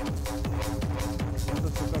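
Electronic dance music with a steady kick-drum beat, about two to three beats a second, over a held synth tone.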